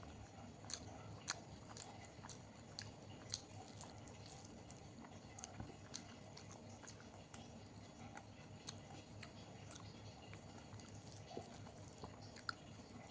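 Close-miked chewing of a meal of rice and dal with fried vegetables: small wet mouth clicks and smacks at an irregular pace, a few sharper than the rest.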